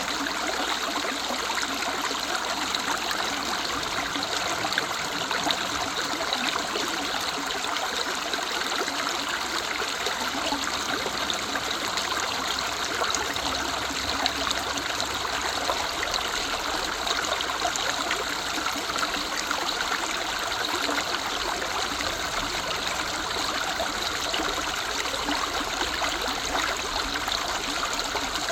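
Running water of a woodland river flowing and babbling over stones, a steady even rush with no pauses.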